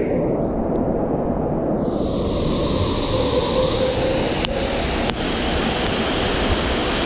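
Steady rush of water running down the waterslides into their run-out channels.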